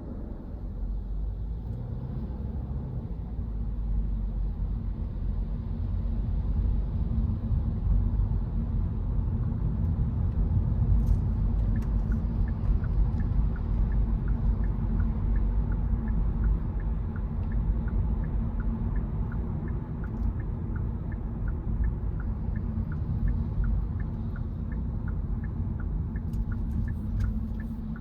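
Driving noise inside a car on a rain-wet road: a steady low rumble of tyres and engine. A faint, regular ticking, about two a second, comes in about twelve seconds in.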